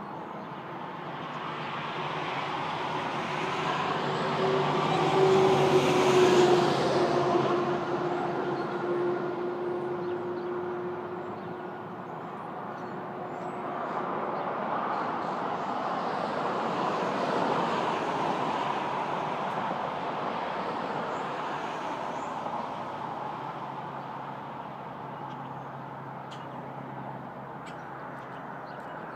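Road traffic passing by: a vehicle swells up and fades away about six seconds in, its engine tone dropping slightly as it goes, and a second vehicle passes more quietly near the middle.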